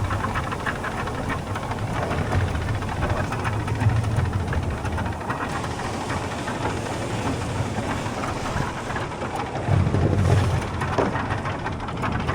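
A fishing boat's engine running steadily under wind and water noise, with a louder low surge about ten seconds in.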